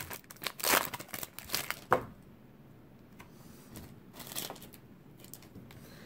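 Foil wrapper of a baseball card pack crinkling and tearing as it is opened, in quick rustles for about two seconds, then only faint rustling.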